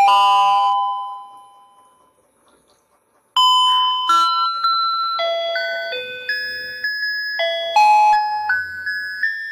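A tinkly electronic melody of single bell-like notes. A bright chime at the start rings out and fades to near silence about two seconds in, then the tune starts again about three and a half seconds in.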